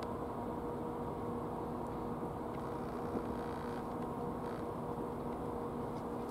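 Steady low hum with an even rumble beneath it, holding one unchanging tone throughout.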